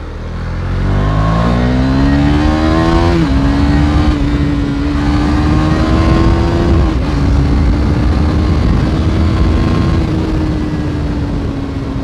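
KTM Duke 390's single-cylinder engine under full-throttle acceleration, revving up through the gears with two quick upshifts, about 3 s and 7 s in, then holding speed and easing off slightly near the end. Wind rushes over the handlebar-mounted microphone throughout.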